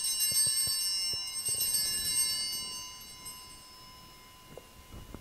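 Altar bells (a cluster of small hand bells) shaken twice at the elevation of the chalice, each bout a bright jangling ring, then dying away over a few seconds.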